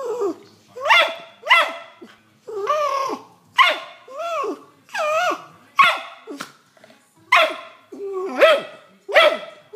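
A dog holding a large rawhide bone in its mouth gives a string of short barks with a wavering, rising-and-falling pitch, about one a second.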